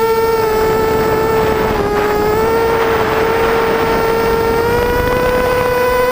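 Quadcopter's brushless motors and propellers whining in flight, a steady high-pitched hum whose pitch dips slightly and then climbs again as the throttle changes, with a rush of wind swelling in the middle.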